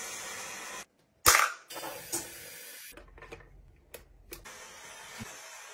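A handheld clothes steamer being handled while its water tank is filled: a loud sharp plastic click with a short rush after it about a second in, then a few softer clicks over a faint hiss.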